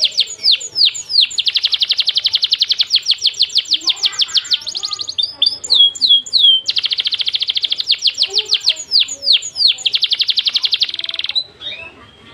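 Songbird singing rapid-fire 'tembakan' trills: very fast runs of tightly packed high notes, broken twice by a few separate downward-sweeping whistles. The song stops abruptly near the end.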